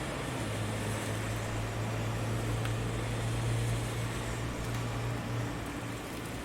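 Steady rain hiss with a low hum, like passing traffic, that comes in about half a second in, swells through the middle and fades near the end.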